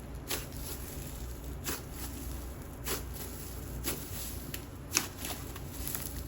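Inflated wood glue cloud cream slime being pressed and folded by hand, trapped air giving five sharp crackling pops about once a second, the loudest near the end.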